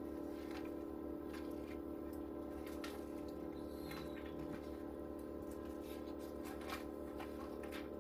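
Steady hum of a machine running in the room, a set of even, unchanging tones, with scattered soft clicks and rustles of papers being handled.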